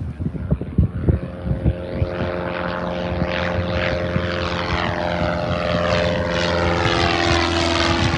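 Propeller airplane engine running at takeoff power and growing louder as the plane passes close by, its steady drone under a sweeping, phasing hiss. Wind thumps on the microphone during the first two seconds.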